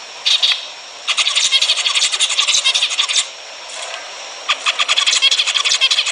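Zebra finches singing and chattering in fast runs of short, buzzy notes, coming in three bursts broken by a brief pause under a second in and a longer one of about a second past the three-second mark.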